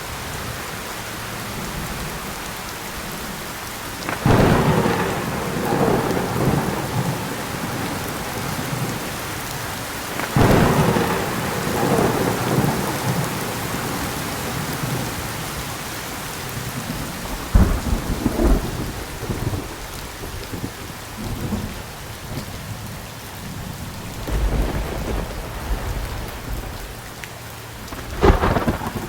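Steady heavy rain with repeated thunder: sharp cracks about four, ten and seventeen seconds in, each rolling off into a rumble over a few seconds, a low rumble about 24 seconds in, and another sharp crack near the end.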